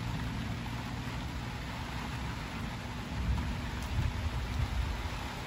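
Thunderstorm: rain falling steadily with a low rumble of thunder underneath, which swells again about three seconds in.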